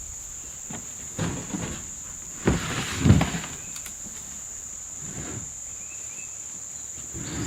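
Steady high buzzing of an insect chorus, with a few knocks and thumps from gear being handled. The loudest knock comes about three seconds in.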